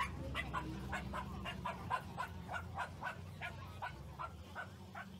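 A small dog yapping rapidly, a long even run of about five short yaps a second that fades a little toward the end, over a steady low hum.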